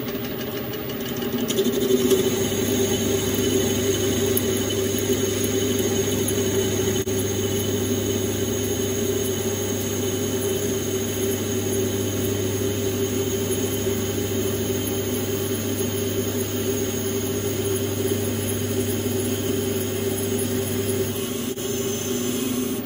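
Metal lathe running while its cutting tool takes a roughing pass along a metal bar, a steady machine whine with a cutting hum that comes in about two seconds in and stops shortly before the end.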